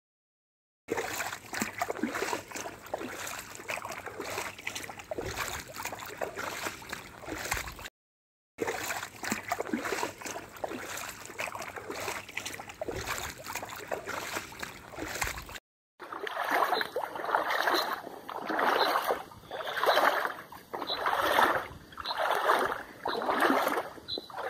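Splashing and sloshing of people wading through knee- to thigh-deep floodwater, in three short clips. In the last clip the splashes come in a steady stride rhythm, about one a second.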